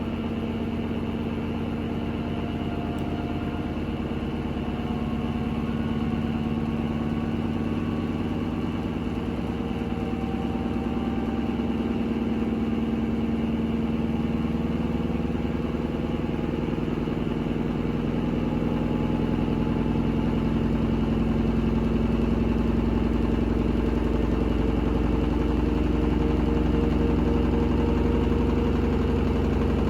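Hoover H-Wash 300 washing machine on its spin cycle with a very unbalanced load of bedding: the motor and drum hum steadily, growing slowly louder.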